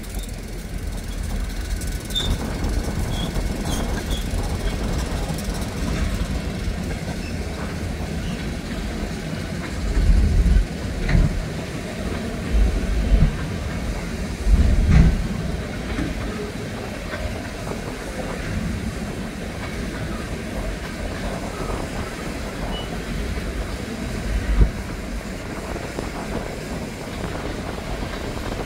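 Freight cars rolling past: a steady low rumble of wheels on rail with clicking, and several heavier thumps and bangs between about ten and fifteen seconds in, with one more near twenty-five seconds.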